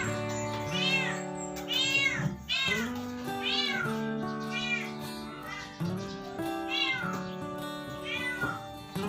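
Background music: held guitar and keyboard chords under a sliding lead line that rises and falls again and again.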